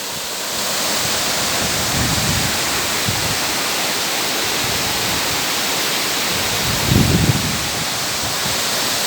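Waterfall: a steady, even rush of falling water. Wind buffets the microphone in a few short low thumps, the strongest about seven seconds in.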